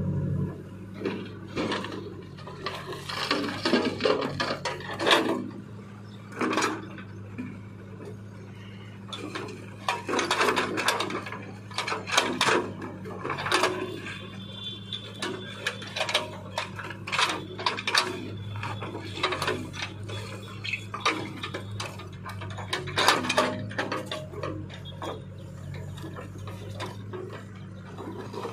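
Backhoe loader's diesel engine running steadily, with irregular clanks, knocks and scrapes of the steel bucket against rock as it digs out boulders and loads them into a tractor trolley.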